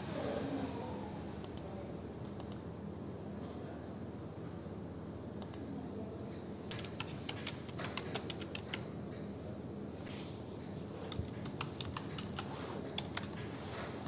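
Typing on a desktop computer keyboard: a few scattered key clicks, then quick runs of keystrokes about halfway through and again near the end, over a steady low hum.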